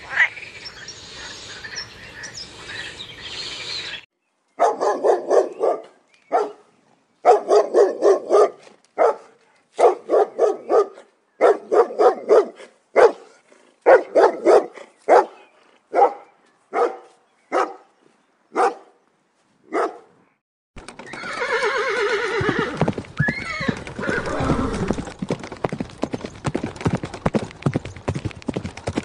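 A water frog croaking for the first few seconds. Then a dog barking, a long run of short barks, some singly and some in quick clusters, with pauses between. From about three-quarters through, a horse whinnies, with a rising call, over a steady clip-clop of hooves.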